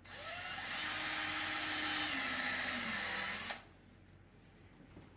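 Power drill boring a pilot hole for a gate mount, its motor running about three and a half seconds, dropping in pitch as it bites near the end, then stopping abruptly.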